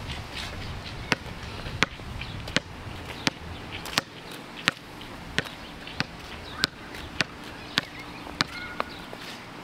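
Footsteps on a concrete sidewalk: a sharp click at each step, evenly paced at about one and a half steps a second.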